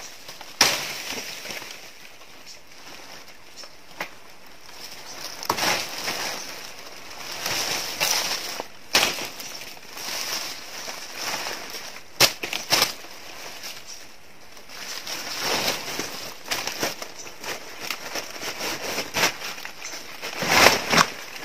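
Dry banana leaves and leaf litter crackling and rustling irregularly as a bunch of bananas is cut down and carried off through the undergrowth, with a few sharp knocks along the way.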